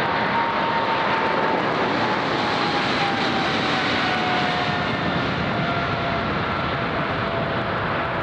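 Air Canada Boeing 777's twin GE90 jet engines at high power on the takeoff roll: a loud, steady rush with a whine that slides slowly down in pitch as the airliner passes and runs away down the runway.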